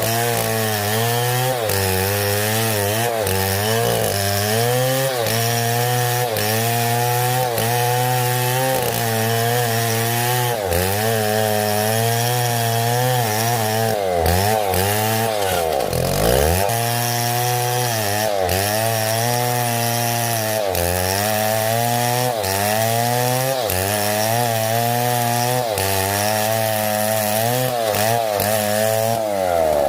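Chainsaw cutting through wood, its engine pitch dipping and recovering in a steady rhythm as the bar works under load, and sagging sharply about halfway through before picking up again.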